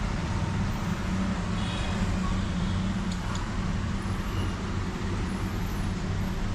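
Steady road traffic noise: a low engine rumble from passing and idling vehicles, with a couple of faint clicks about three seconds in.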